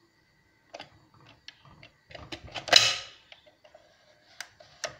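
SEB Clipso+ pressure cooker lid being set on the pot and locked shut: a run of small clicks and knocks, with one louder metallic clack about three seconds in.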